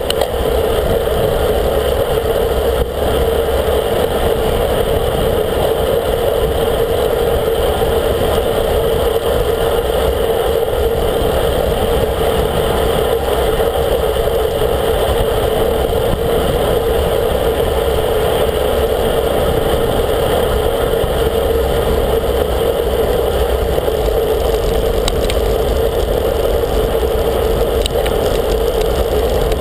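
Steady, loud rush of wind and tyre noise at a bike-mounted camera on a road bike moving at speed, with car traffic running alongside.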